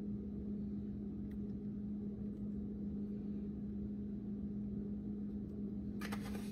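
Steady low hum with low room noise, unchanging throughout. Faint light rustling near the end as the spice jar is handled.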